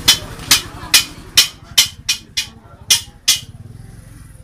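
Metal being struck repeatedly, hammer blows with a ringing edge, about two a second. The strikes stop about three and a half seconds in.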